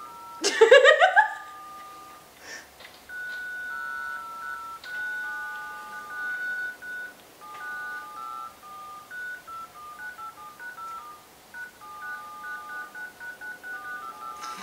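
Phone playing touch-tone (DTMF) dial tones in an irregular stream of short and long two-note beeps. About half a second in, a brief loud rising squeal.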